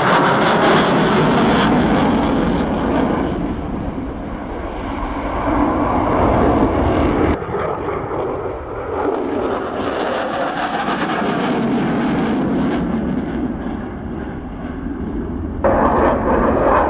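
Dassault Rafale jet fighter's engines during a flying display: a loud, continuous jet noise that swells and fades as the aircraft passes, with two sudden shifts in level.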